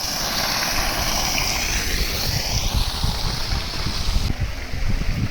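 Flowing water running steadily, with wind buffeting the microphone in irregular low gusts.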